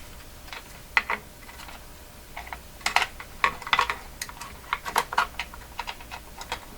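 Irregular light clicks and taps of small speaker parts being handled and fitted together on a workbench, sparse at first and coming thicker from about three seconds in.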